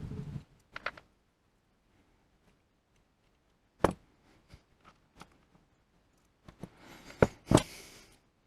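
Scattered clicks and knocks of lathe apron parts and tools being handled during reassembly. There is a sharp knock about four seconds in, and near the end a short scraping rustle with two louder knocks.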